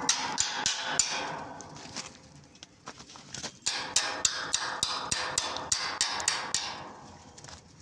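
A hammer striking metal in quick, even blows, about four a second, with a ringing note, stopping briefly in the middle: typical of a chipping hammer knocking slag off a stick-weld bead.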